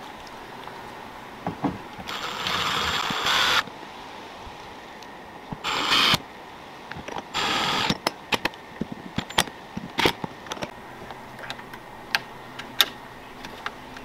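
Cordless drill-driver running in three short bursts, the first about a second and a half long, driving screws into a keyless entry lock on an RV door. Scattered sharp clicks and taps from handling the lock hardware follow.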